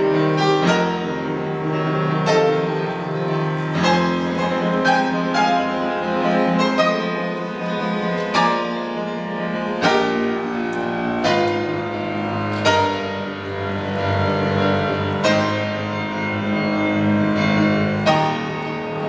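Steinway & Sons grand piano played alone, with chords and melody notes struck every second or two and left to ring.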